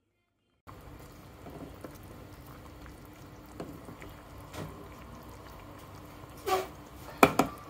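Water boiling with penne pasta in a pot, bubbling steadily, with a few light knocks from a wooden spoon stirring and two louder knocks near the end.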